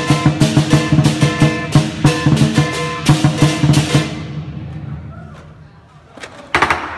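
Lion dance percussion, drum with cymbals and gong, beating a fast, steady rhythm that stops about four seconds in and rings away. A short loud burst sounds near the end.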